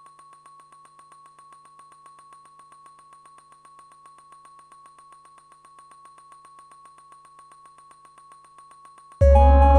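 Electronic ambient music from a generative soundtrack: a faint held high tone with a soft, fast, even pulse, then a loud synthesizer chord over deep bass comes in suddenly near the end.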